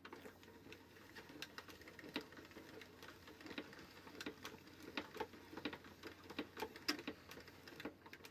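Hand-cranked plastic mixer of a 1993 Mattel McDonald's Happy Meal Hamburger Snack Maker being turned, its paddle churning the wet patty mix and giving faint plastic clicks, about two a second.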